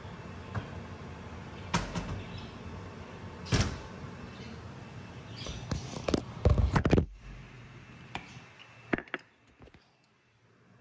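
Knocks, thunks and clatter of kitchen handling, with a loud cluster of knocks about six to seven seconds in, over a steady background noise that cuts off abruptly just after. A few fainter knocks follow near the end.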